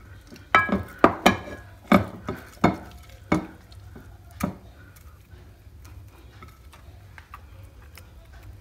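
A glass jar and a ceramic plate knocking against the countertop as butter is packed into the jar by hand, about eight sharp knocks in the first four and a half seconds, then only faint handling.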